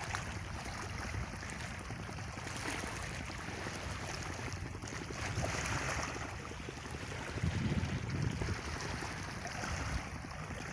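Small sea waves washing against rocks at the shoreline, with wind rumbling on the microphone that grows louder for about a second, around seven and a half seconds in.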